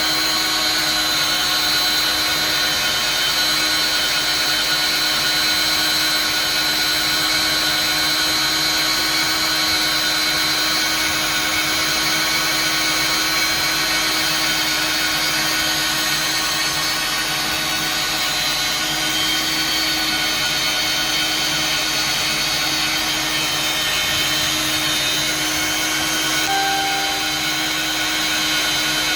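A power tool's motor running steadily without a break, with a high, steady whine.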